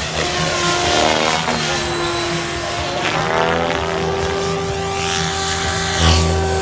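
XLpower Nimbus 550 electric RC helicopter flying 3D aerobatics: the whine of its rotor blades and motor keeps shifting in pitch as it swoops and passes. The whine grows louder, with a low rush of blade noise, about six seconds in.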